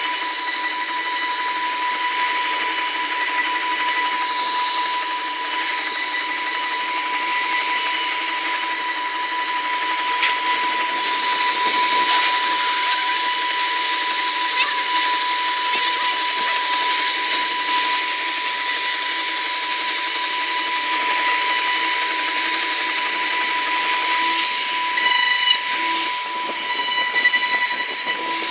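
CNC router spindle running with a steady high whine and a hiss, with small changes in tone near the end.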